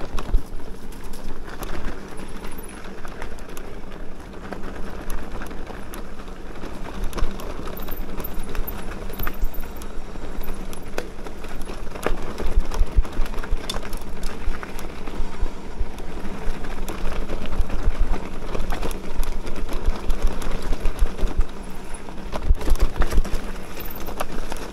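Electric mountain bike ridden over a rough, rocky bridleway: a continuous rumble of tyres on stones and dirt, with frequent knocks and rattles as the bike jolts over rocks.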